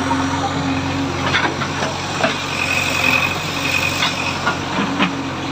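Diesel engine of heavy machinery running steadily, with a few short knocks about one and a half, two and five seconds in.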